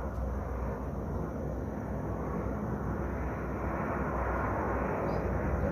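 Boeing 737-800's CFM56-7B jet engines running, a steady rumble that grows slowly louder.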